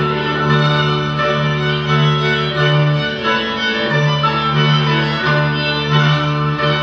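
Folk dance music for the odzemek, played by bowed strings over a long held bass note.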